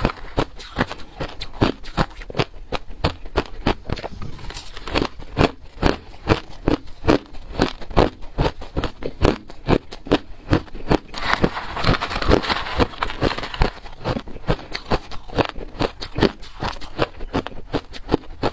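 Hard crushed ice being crunched between the teeth, close to a clip-on microphone: a fast, continuous run of sharp crunches, several a second. A stretch of rougher, gritty crunching comes about halfway through.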